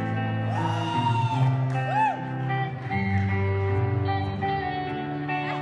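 Background guitar music, with held notes and a few bent notes.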